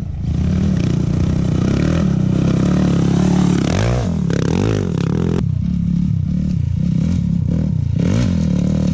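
Off-road racing engines revving hard, their pitch swinging up and down several times in the middle as they rev, shift and go by.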